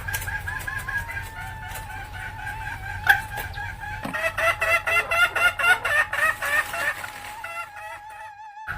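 Junglefowl hen cackling (ngekek): a fast run of short clucking notes, about five a second, starting about four seconds in, over a steady wavering high tone. The sound cuts out briefly near the end.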